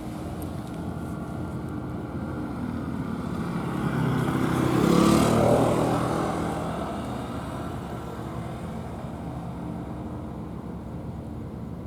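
A motor vehicle passing by: its engine hum builds, is loudest about five seconds in, then fades away.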